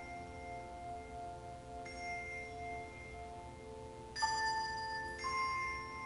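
Handbell choir playing a slow passage: bells are struck in chords that ring on and overlap, with a soft new entry about two seconds in and louder chords struck about four and five seconds in.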